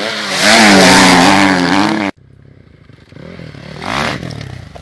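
Dirt bike engine revving loud and close, its pitch rising and falling, cut off abruptly about two seconds in. Then another dirt bike revs up as it passes close, loudest about four seconds in.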